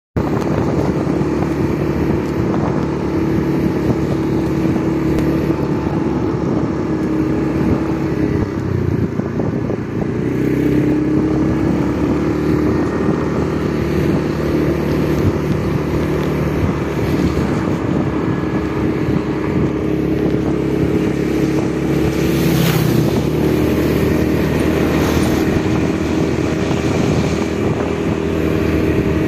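Motorcycle engine running at a steady cruising pace, heard from on board over a steady rushing of wind and road noise. The engine note dips and wavers about eight to ten seconds in, then settles back to a steady drone.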